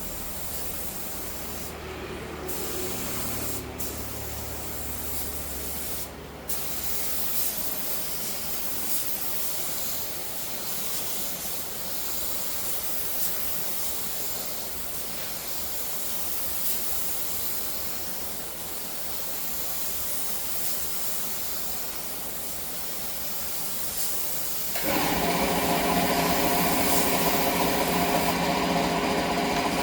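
Wood-processing machinery giving a steady hiss. About 25 s in, a louder machine hum with a steady pitch starts up.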